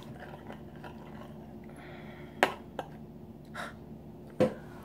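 Metal spoon clinking against a ceramic soup bowl while stirring and scooping soup with rice: a few short, sharp clinks, the loudest about halfway through and near the end, with softer taps between.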